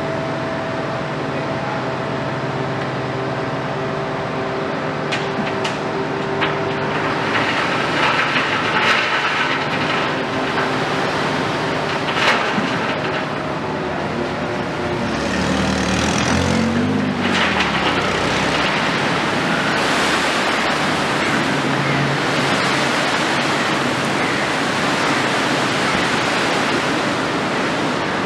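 Demolition excavator (Volvo EC 360 long-front) diesel engine running under hydraulic load while its shear breaks concrete, with crunching and clattering debris in the middle of the stretch and the engine note dipping and rising briefly. A steady rushing noise fills the second half.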